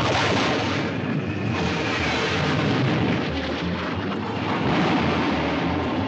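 Cartoon rocket sound effect: the steady rushing noise of a rocket in flight, which starts suddenly as it streaks past.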